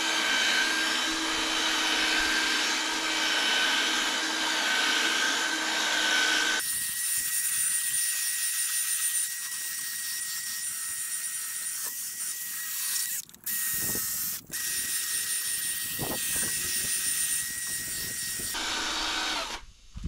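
Cordless DieHard drill spinning a 1500-grit sanding disc against a wet plastic headlight lens: the wet-sanding stage of a headlight restoration. The motor's note shifts about a third of the way in, cuts out twice briefly in the middle, and stops just before the end.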